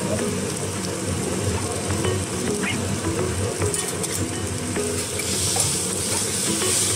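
Food sizzling on a hot teppanyaki flat-top griddle while metal spatulas scrape and tap against the iron plate. The sizzling grows louder about five seconds in as the food is worked on the plate.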